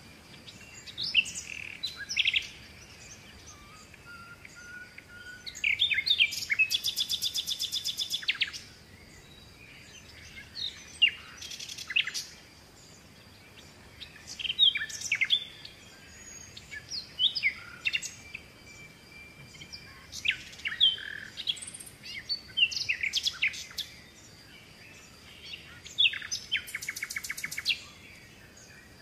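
Wild birds calling: short chirps and whistles recurring every few seconds, with a fast rattling trill of about two seconds near the start and again near the end.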